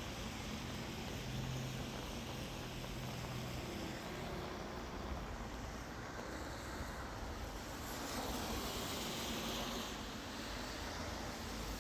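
Steady rainfall recorded live, a continuous even hiss that swells slightly now and then.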